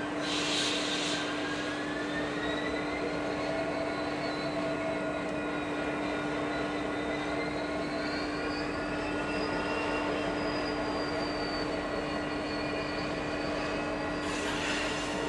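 Union Pacific four-axle diesel locomotive running at low speed, its engine holding a steady hum with thin whining tones that slowly rise and fall. A short hiss comes about half a second in and another near the end.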